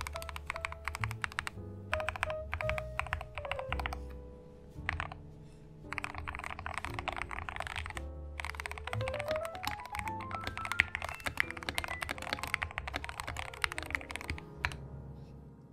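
Typing on a YUNZII KC-68 65% mechanical keyboard with a plastic case and plate, hand-lubed Gateron Yellow switches and a Tempest tape mod: quick runs of keystrokes in bursts, pausing about four seconds in and briefly again about eight seconds in. Background music plays under the typing.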